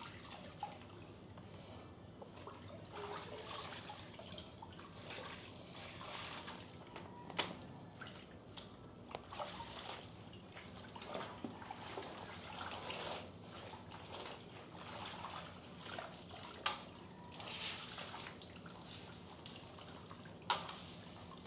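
A tire-repair reamer being worked back and forth in a nail puncture in a motorcycle tire, enlarging the hole for a plug. It makes faint, irregular rubbing and scraping, with a few sharp clicks.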